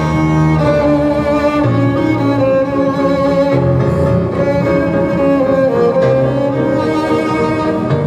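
Violin playing a slow melody of long held notes over an accompaniment of bass and strings.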